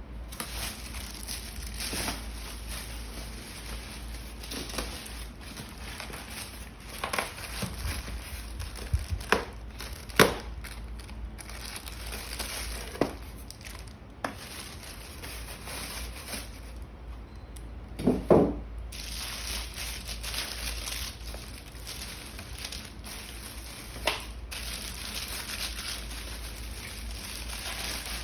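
Crinkling and rustling handling noises with scattered knocks and clicks over a steady low hum; the loudest, a short crackly rustle, comes about 18 seconds in.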